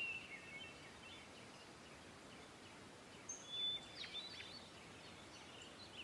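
Faint bird chirps over a quiet outdoor hiss: a few short, high calls near the start and again about three and a half seconds in.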